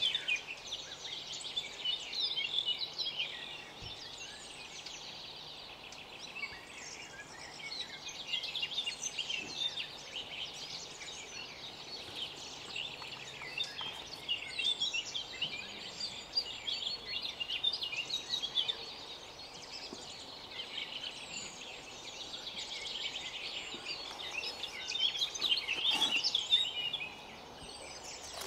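Several songbirds singing and chirping together in dense, repeated phrases, with one sharp knock about a second before the end.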